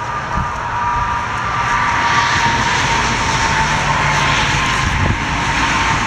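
Towable boom lift's gasoline engine running steadily, with a steady high whine over it.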